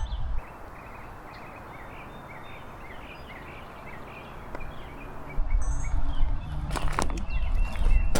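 Small birds chirping over a steady outdoor hiss. About five seconds in, a loud low rumbling noise on the microphone takes over, with a couple of sharp clicks a little later.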